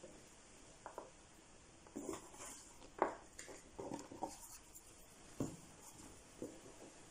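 Soft, scattered taps and rustles of hands handling thin rolled pastry dough on a floured wooden board, lifting out cut ovals and gathering up the scrap sheet.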